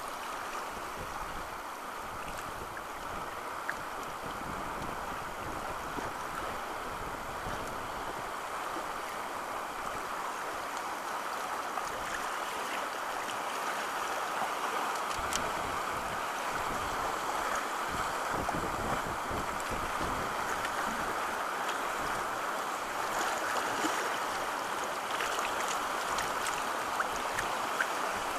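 River rapids rushing past a canoe: a steady rush of fast water that grows a little louder, with gusts of wind buffeting the microphone.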